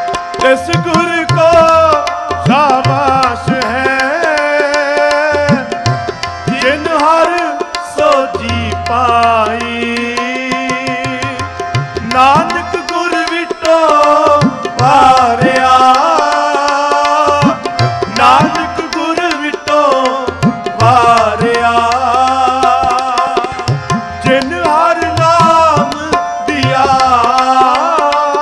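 Sikh kirtan music: tabla keeping a steady rhythm with deep bass-drum strokes, under a harmonium drone and a sliding, ornamented sung melody.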